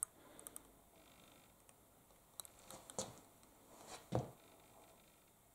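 Quiet room with a few faint scattered clicks and brief soft knocks of handling, the two clearest about three and four seconds in.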